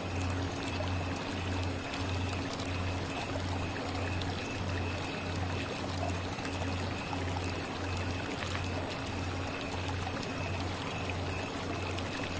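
Tibetan singing bowl tuned to C# ringing on after a strike, a steady sustained tone with a low hum that throbs a little over twice a second, over a steady hiss.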